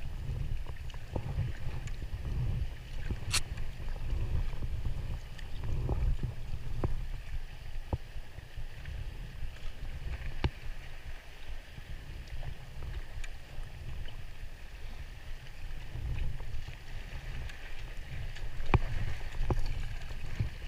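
Kayak paddle strokes in sea water from a TRAK 2.0 folding kayak: repeated splashes and drips over a low wind rumble on the microphone. A few sharp clicks come through, the strongest about three seconds in.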